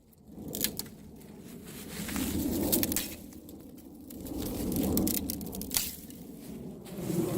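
Rustling in three slow swells, with scattered light clicks and snaps.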